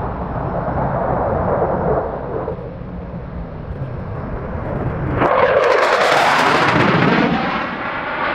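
Fighter jet flying past: a steady rumble of jet noise that swells about five seconds in into a louder, hissing rush, with a sweeping, phasing tone as it goes by.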